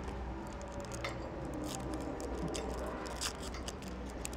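Panini Prizm trading card pack being torn open and its wrapper crinkled by hand: a run of short, sharp crackles and rustles over a low steady hum.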